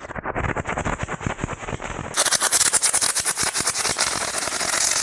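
Small solid-fuel rocket motor burning on a 3D-printed rocket boat as it shoots across the water: a continuous rough, crackling hiss that turns brighter and harsher about two seconds in.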